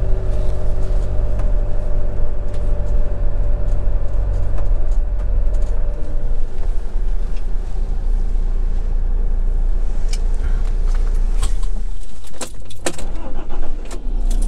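Swift Kon-Tiki motorhome's diesel engine running at low speed and then idling, heard from inside the cab as a steady low hum. A few sharp clicks and rattles come near the end.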